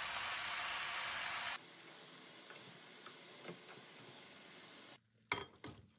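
Beef and vegetables sizzling as they are stir-fried in a pan. The sizzle drops to a quieter level about a second and a half in, with a few light ticks, then stops about a second before the end, followed by a couple of clicks.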